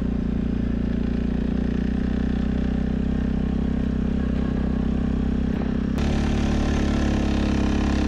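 ATV engine running at a steady pace while being ridden, with its tone changing abruptly about six seconds in.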